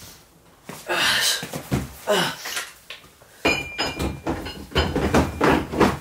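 A man breathing hard and grunting with effort while lifting dumbbells on a weight bench, with a few knocks from the weights and bench.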